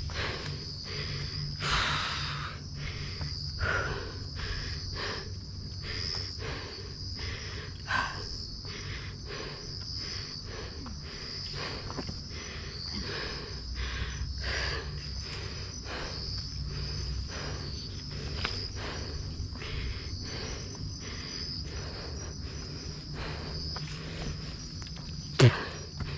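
Footsteps on a dry, leaf-littered dirt trail in a steady run of about two a second, over the steady high chirring of night insects. Near the end there is one sharp, loud knock.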